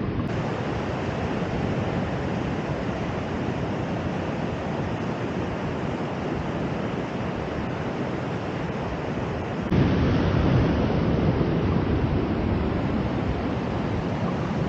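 Steady rushing of ocean surf and wind on the microphone, stepping up abruptly louder and heavier about ten seconds in.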